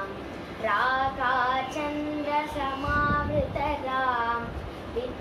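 A girl singing solo Carnatic vocal music, with held notes and sliding ornaments between pitches.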